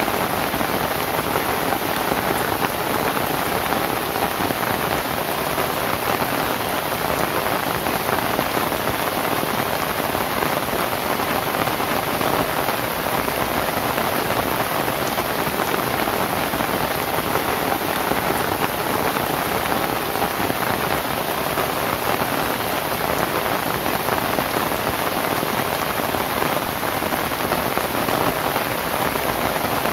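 Steady rain falling on a palm-leaf thatched roof: a dense, even rush of drops that neither builds nor eases.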